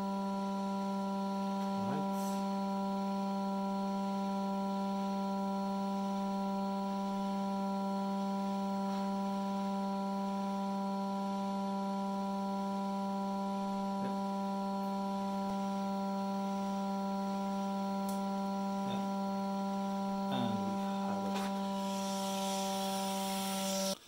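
Hot air rework station's blower running at 75% airflow, heating a laptop motherboard to desolder an M.2 connector. It gives a steady hum, one low tone with several higher overtones, under a few faint ticks.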